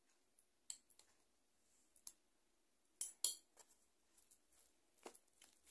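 A few faint, sharp taps and clicks of a wooden spoon against a glass mixing bowl as salt and tomato paste are spooned into bulgur dough, the loudest pair about three seconds in, with near silence between them.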